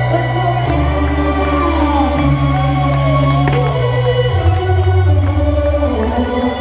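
Dance music played loud over a PA system, with a heavy sustained bass line that shifts note every second or two and a lead that slides up and down in pitch about two to four seconds in.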